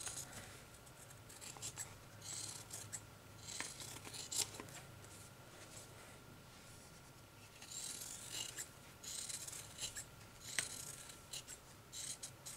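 Scissors snipping through cotton batting, cutting around the edge of a circle: several runs of quick, crisp snips with short pauses between them.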